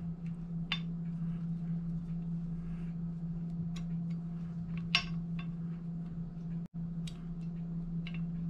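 Light metal clicks and clinks of a Springfield Trapdoor rifle's breech block and small steel parts being fitted together by hand, a few scattered taps with the sharpest about halfway through, over a steady low hum.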